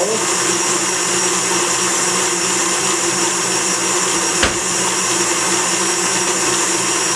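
KitchenAid tilt-head stand mixer (Hobart-built) running steadily at speed 6, its dough hook working a sticky yeast batter in the stainless steel bowl, with a single brief knock about four seconds in.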